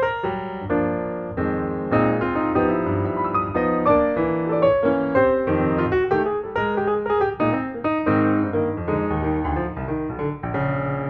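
Background piano music, a flowing run of struck notes and chords.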